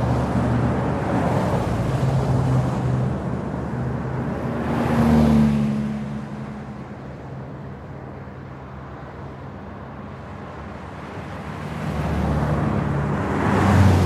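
Fast traffic on a trunk road: vehicles passing at speed, with one loud pass about five seconds in whose engine tone drops in pitch as it goes by. A quieter lull follows, then another vehicle approaches and passes near the end.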